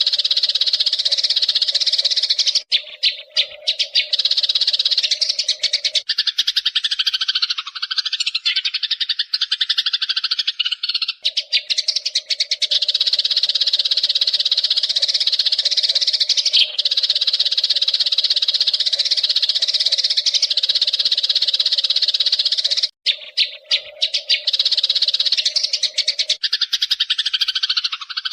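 Eurasian tree sparrows chirping and chattering in a dense, unbroken chorus, a recording used to train caged birds.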